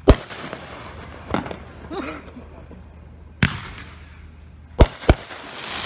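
Consumer 200-gram firework cake firing its shots overhead: about five sharp bangs spread out, the first the loudest, with a hiss building near the end.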